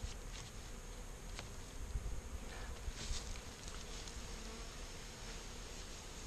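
A 3-pound package of honey bees buzzing with a steady hum.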